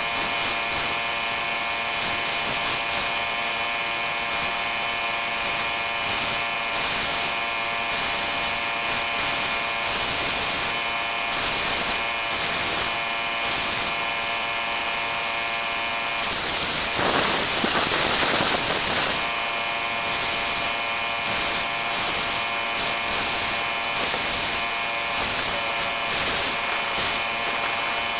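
Small electric motor of a homemade mini milling machine running steadily with a constant whine, growing louder and rougher for a couple of seconds about two-thirds of the way through.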